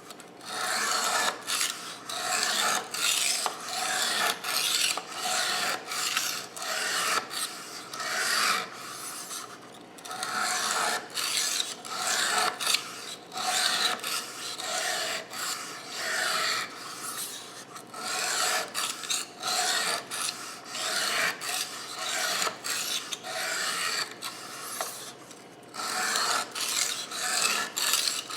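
Steel kitchen knife edge being drawn along a coarse 220-grit aluminium oxide sharpening stone in long strokes, a rasping scrape repeated about once a second with brief pauses between strokes. This is the burr-raising stage of sharpening at a 20° angle.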